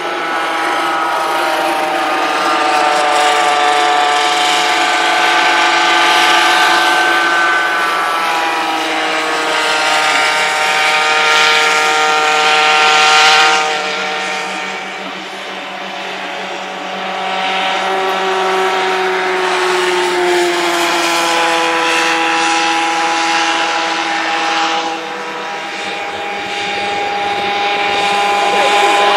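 Several small two-stroke racing kart engines running hard at once, their high-pitched whine rising and falling as the karts accelerate, lift off for corners and pass by. Two short dips in loudness come about halfway through and again near the end.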